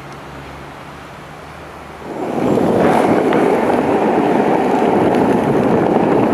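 Penny board wheels rolling over an asphalt path. A steady rolling noise starts about two seconds in, with a few light clicks from bumps in the surface.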